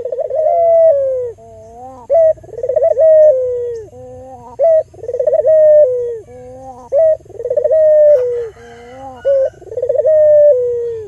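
Barbary dove (local albino puter) cooing: a short note then a longer rolling coo, repeated about every two seconds.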